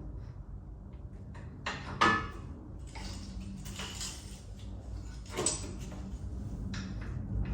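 Metal clanks and knocks from hitch parts being handled on a John Deere 1026R's three-point hitch, over a low steady hum. The loudest is a sharp clank about two seconds in, with another about five and a half seconds in.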